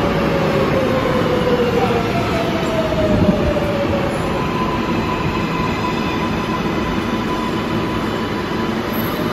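R188 subway train pulling into the station and slowing, wheels rumbling on the rails, with a whine that falls in pitch as it brakes. A steady higher tone joins about halfway through.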